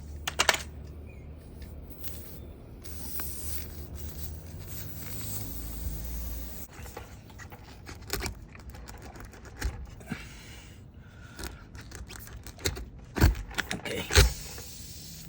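Metal hand tools from a tyre plug kit clinking and scraping as they are handled, with several sharp clicks, the loudest near the end. A low steady hum runs through the first half.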